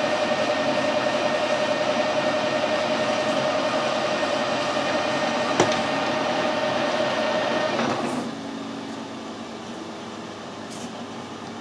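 Metal lathe running with a steady whine, spinning a small shaft that is being turned down to size; a sharp click comes a little past halfway. About eight seconds in the lathe is switched off and the sound drops away to a quieter steady hum.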